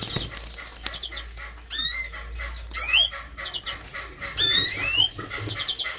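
Small finches calling in a breeding aviary: several loud rising whistled calls, with short repeated chirps between them. A few light knocks and rustles come from handling among the grass.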